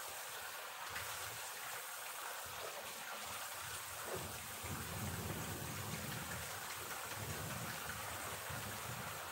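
Heavy rain falling steadily on a paved street, a constant even hiss of splashing. A low rumble joins about halfway through.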